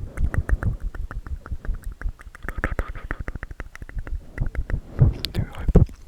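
Close-miked ASMR trigger sounds: a dense run of quick crackly clicks with soft low thumps against the microphone, stopping at the end.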